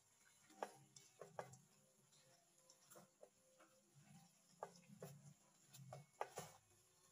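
Silicone spatula tapping and scraping against a non-stick wok while battered chicken pieces are tossed: faint, irregular clicks and taps, a few a second at most.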